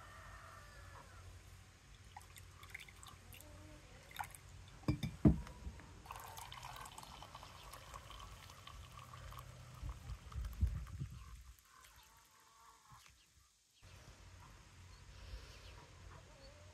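Hot coffee poured in a steady stream into a ceramic mug, after a few sharp knocks about five seconds in, the loudest sounds here.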